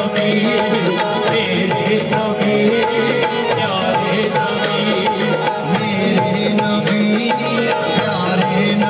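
Qawwali accompaniment: tabla beats in a steady rhythm under a sustained melody from the harmonium, with little or no singing.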